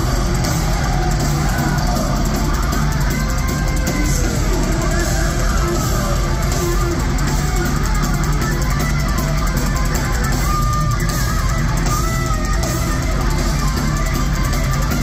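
Heavy metal band playing live at full volume: distorted electric guitars, bass and drums, with a few held lead-guitar notes standing out near the end.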